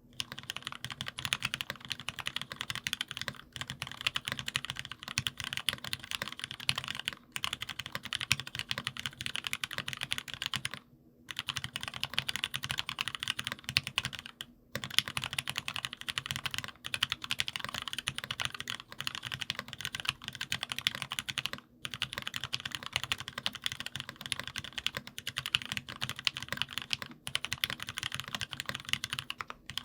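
Fast continuous typing on a gasket-mounted aluminium keyboard with lubed Gateron Merlot tactile switches and HammerWorks Tulip keycaps: a dense stream of keystroke clacks, broken by a few brief pauses.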